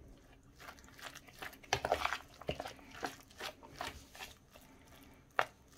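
A metal spoon stirring and mashing grated boiled potato, cheese and raw egg in a bowl, with irregular scrapes and clicks of the spoon against the bowl and one sharp tap near the end.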